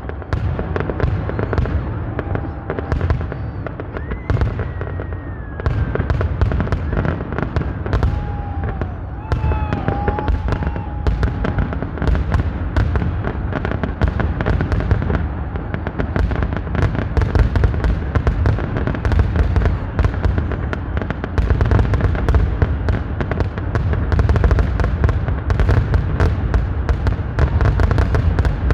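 Fireworks going off in a dense, continuous barrage of crackling pops and bangs, with a few short whistling tones in the first ten seconds or so.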